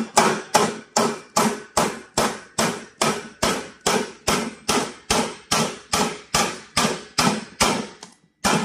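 Hammer blows on a stud-welded M8 steel stud on a thin painted corrugated steel roofing sheet: about two to three blows a second, each a sharp metallic knock with a short ring, with a brief pause near the end. The studs are being hammered over to test the strength of the welds.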